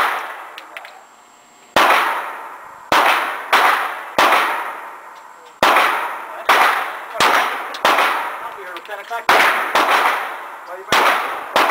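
Glock 17 9mm pistol shots, about a dozen fired at an uneven pace of roughly one a second. Each shot has a long, echoing decay.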